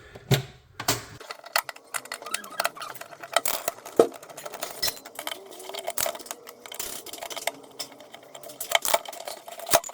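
Irregular clicks, taps and scrapes of hand tools and plastic parts while an old electrical wall socket is removed, with one sharper knock about four seconds in.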